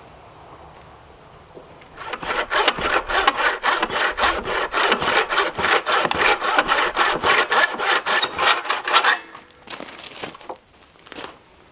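Hand saw cutting through wood in quick, even strokes for about seven seconds, stopping about nine seconds in, followed by a few light knocks.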